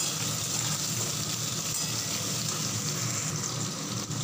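Pumpkin pieces frying in mustard oil in a kadai, giving a steady sizzle.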